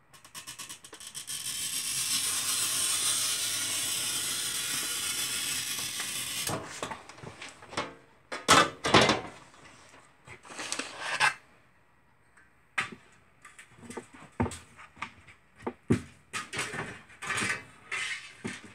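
A glass cutter scoring a sheet of picture-frame glass: a steady scratchy hiss lasting about six seconds. It is followed by a run of sharp glassy clicks and knocks as the glass is worked, the loudest a couple of seconds after the scoring stops.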